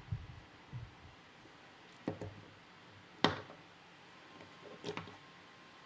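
Handling noises: a few soft bumps, then several separate sharp knocks and clicks of hard plastic robot parts against a wooden tabletop, the loudest a little past the middle.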